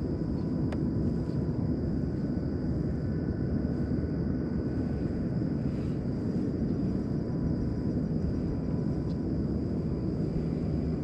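A steady low rumble of outdoor background noise, with faint thin steady tones above it.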